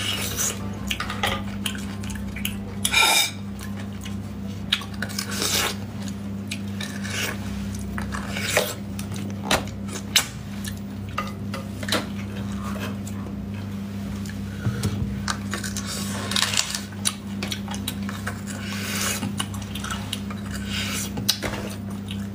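Close-miked eating of sauced lamb bone marrow: wet, irregular mouth clicks and smacks from chewing, with a few longer sucking slurps, over a steady low hum.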